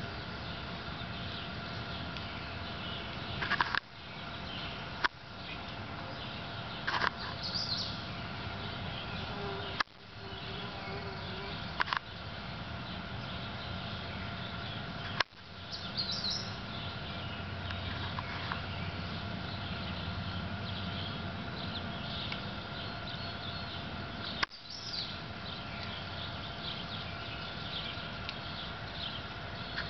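Songbirds chirping faintly over a steady low hum. Several sharp clicks break in at intervals, about seven across the stretch.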